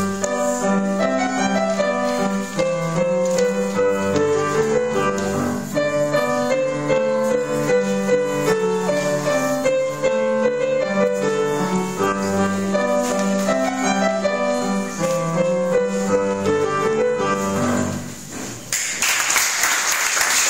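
Solo upright piano playing a piece; the music stops about eighteen seconds in and an audience breaks into applause.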